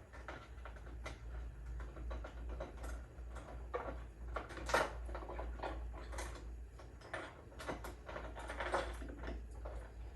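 Irregular light clicks and knocks of a motorcycle tail light unit and rear fender plastics being handled and fitted into place, over a steady low hum.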